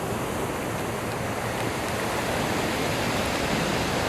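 Pacific Ocean surf rushing steadily as waves wash onto the shore and jetty rocks, growing slightly louder.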